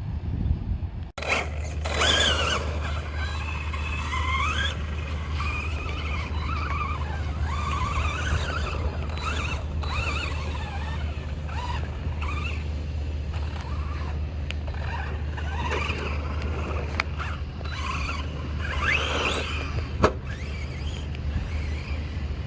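Brushless electric motor of an Arrma Big Rock V3 RC truck, run on a 3S battery, whining up and down in pitch as the throttle is worked, over a steady low rumble. A single sharp knock comes about 20 seconds in.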